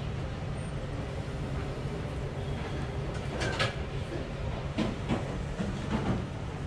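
Steady low rumble, with several short knocks and clacks around the middle.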